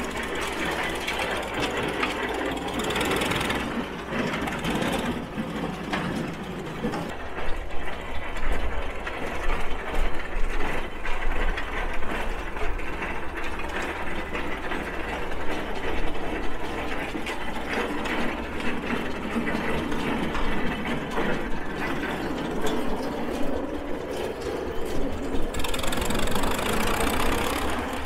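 Sawyer-Massey 11-22 antique tractor engine running, a steady mechanical clatter of rapid knocks, louder for a few seconds in the middle.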